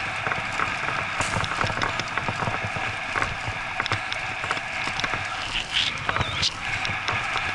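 Bikejoring bike rolling fast over a dirt forest trail: steady tyre and riding noise with frequent small clicks and rattles from bumps, and a brief louder jolt about six seconds in.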